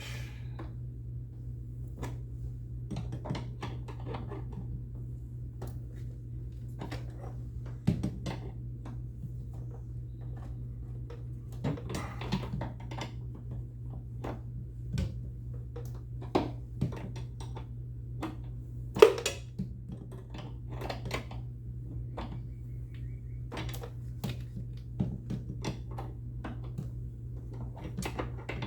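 Wrench working a nut tight on a car's battery kill switch: irregular metallic clicks, clinks and knocks, with one louder clank about two-thirds of the way through, over a steady low hum.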